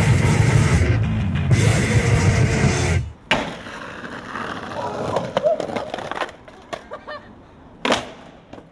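Music for about three seconds, then it cuts out to skateboard sounds: wheels rolling on pavement and several sharp wooden clacks of the board popping and landing, the loudest near the end.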